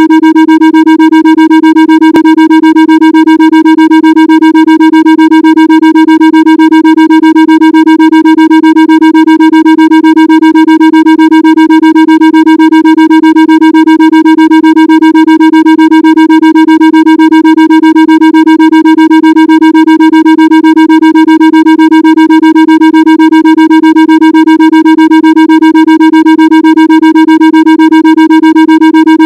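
A steady synthesized Rife-frequency tone: one unchanging low-middle pitch with a row of buzzy overtones, pulsing rapidly and evenly, meant as a Rife frequency with delta-wave pulsing for the liver.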